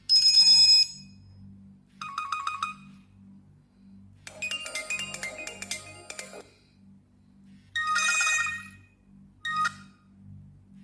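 Nokia Asha 302 phone playing short electronic alert tones one after another: five separate chimes, most about a second long, with a longer two-second melodic jingle in the middle and a very short blip near the end.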